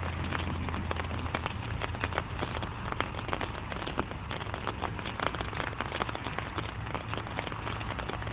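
Rain falling: many small, irregular raindrop taps landing close to the microphone, over a steady low hum.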